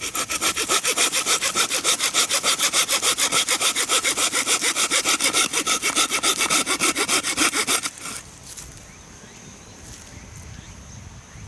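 Hand saw cutting through a length of green bamboo in quick, even back-and-forth strokes that stop abruptly about eight seconds in.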